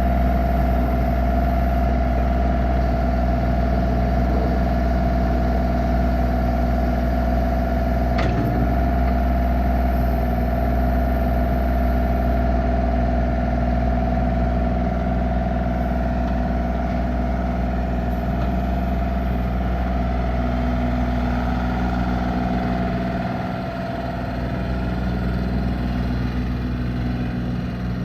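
Bobcat E32 mini excavator's diesel engine running steadily, with a strong low rumble and a steady whine above it. There is a single sharp click about eight seconds in, and the rumble eases a little in the last few seconds.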